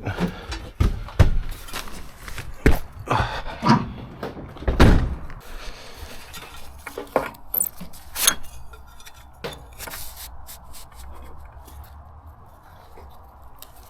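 Irregular knocks, clicks and clatter of hard gutter-clearing equipment, pole sections and a nozzle, being handled and fitted together. The knocks come thick in the first few seconds and thin out toward the end, over a faint steady low hum.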